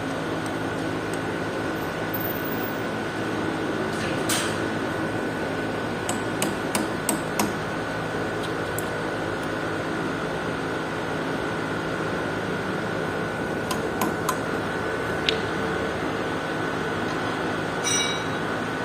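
Scattered metallic clinks and taps of hand tools on the metal parts of a concrete pump's water pump during its removal, a dozen or so spread irregularly over a steady machine hum with a thin high whine.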